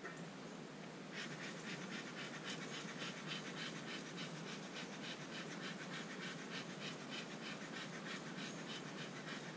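Bee smoker's bellows being pumped, sending quick repeated puffs of air and smoke over the hive frames, starting about a second in.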